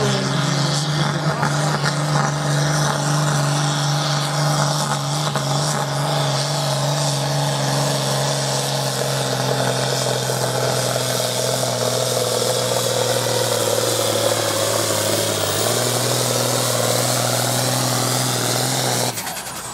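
John Deere 4240's six-cylinder turbocharged diesel working flat out under full load as it drags a weight-transfer pulling sled, holding a steady, loud note with a slight dip about three-quarters of the way through. The engine note falls away near the end.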